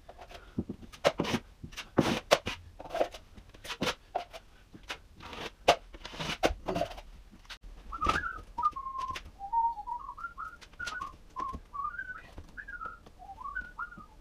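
Repeated scrapes and knocks of a drywall knife working hot mud against a hawk and into the wall's metal mesh; from about eight seconds in, a person whistling a wandering tune over the quieter tool sounds.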